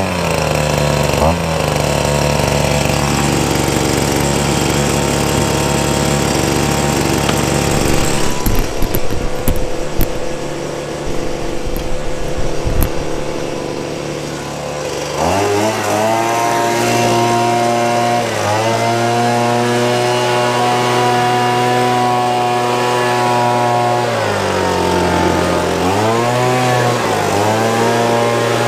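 Handheld gas leaf blower's 26cc two-stroke engine running: a steady idle at first, a stretch of gusty noise about halfway through, then the throttle is opened and the engine revs up to a high, steady speed, drops back briefly near the end and revs up again.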